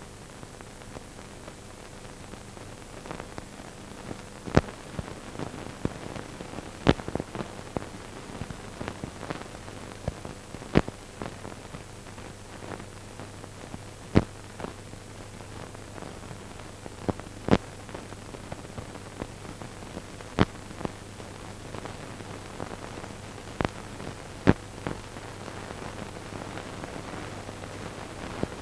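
Surface noise of a worn, scratched film print's soundtrack: a steady hiss and low hum, broken by sharp pops every few seconds with smaller crackles between.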